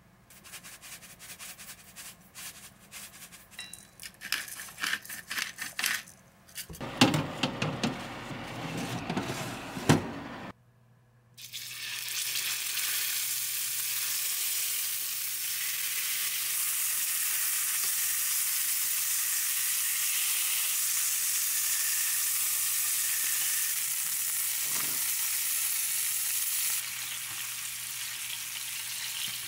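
A run of small clicks and rubbing handling noises, then after a short break top-blade beef steaks sizzling steadily as they sear in oil in a stainless steel frying pan, the sizzle easing slightly near the end as they are basted with melted butter.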